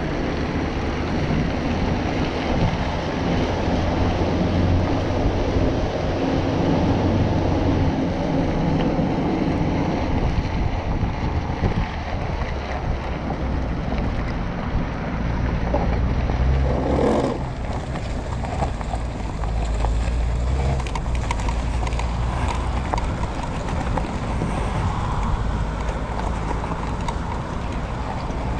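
Wind buffeting the microphone and tyre rumble as an enduro motorcycle rolls under tow over a rough track and then loose gravel, a broken chain leaving it with no drive. A short swell of sound stands out about two-thirds of the way through.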